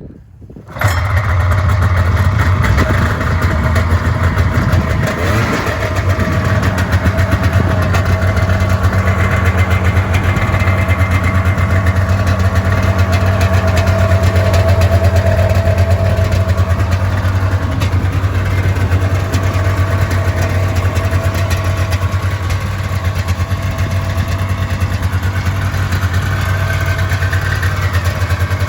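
A 1993 Polaris Indy Sport 440 snowmobile's two-stroke twin engine starts about a second in, then runs at a steady idle.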